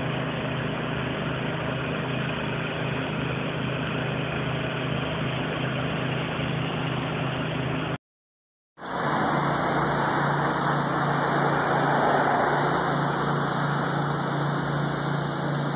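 Pressure-washing rig's engine running steadily. About eight seconds in it cuts off, and after a short silence another stretch of steady engine noise follows, with more hiss in it.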